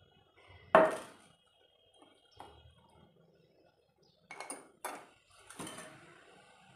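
Stainless-steel tea strainer and saucepan clinking and knocking against a mug and the countertop while chai is strained. There is one sharp knock about a second in, a light tap a little later, and then a quick run of clinks about four to six seconds in.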